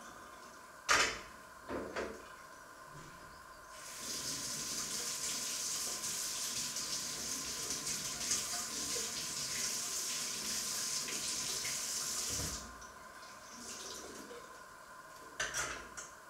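Kitchen tap running into the sink as a steady hiss for about eight seconds, then shut off. A sharp knock and some clatter at the sink come before it, and a few more clinks near the end.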